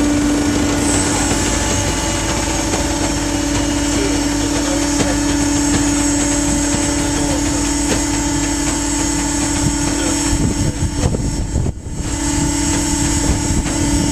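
V500 mill-size baler running with a steady mechanical hum, one strong low tone over a rumbling noise, briefly dropping out near the end before resuming.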